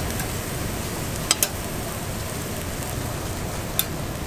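Pork back ribs sizzling steadily as they grill, with a few sharp clicks about a second and a half in and again near the end.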